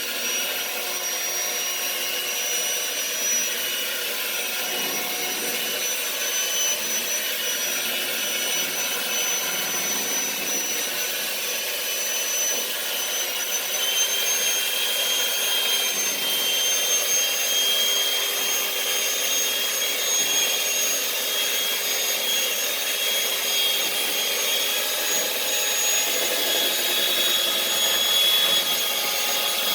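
Electric hand mixer running steadily on speed 3, its beaters working cake batter in a bowl: a constant high motor whine that steps up slightly in pitch and loudness about halfway through.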